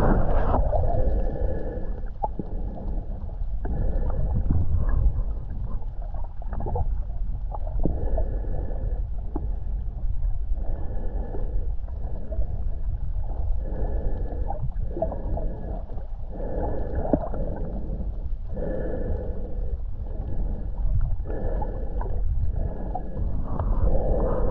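Snorkeler breathing through a snorkel in slow, regular breaths every two to three seconds, heard muffled and gurgling through a GoPro's waterproof housing at the water surface.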